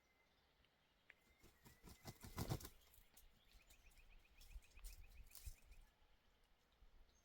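Near silence with a few faint rustles and knocks, and a faint, fast ticking trill in the middle.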